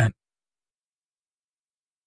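Complete digital silence, just after a voice finishes a word at the very start.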